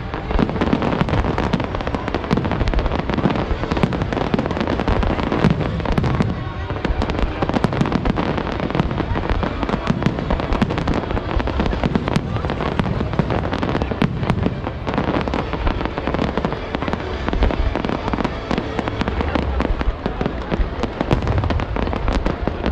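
Fireworks barrage: rapid bangs and crackles, densely overlapping without a break.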